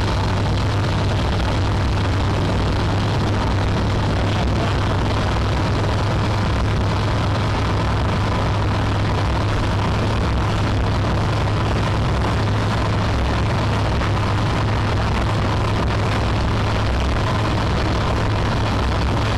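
Speed boat's engine running steadily at speed with a strong low drone, under an even rush of wind and water.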